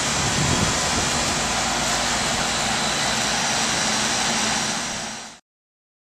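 Outdoor HVAC condensing unit running: a steady rush of air from the condenser fan over a low, even hum. It fades and cuts off near the end.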